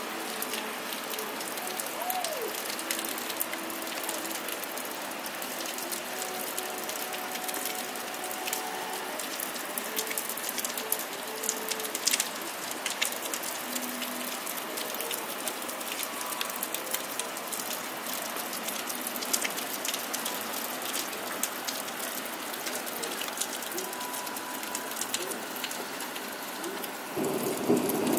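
Steady rain falling on wet pavement, cars and puddles, with many small drops ticking through it. About a second before the end a low rumble of thunder starts and rises in level.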